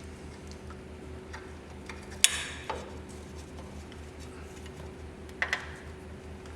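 A few sharp metallic clinks of tools and a steel bolt against the motorcycle's centre stand as the stand bolt and spacer are refitted: one loud ringing clink a little over two seconds in, a lighter one soon after, and a quick pair later. A steady low hum runs underneath.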